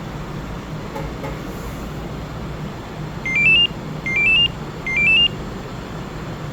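Kia Bongo 3 engine idling after a remote start, with three short chimes of four rising electronic beeps, about a second apart, from the Magicar Gold8 two-way remote-start system.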